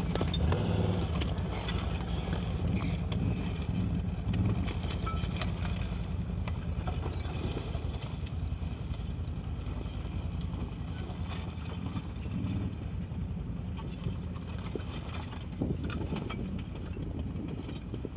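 Quad bike (ATV) engine running at low speed off-road, with occasional knocks and rattles. It slowly gets fainter.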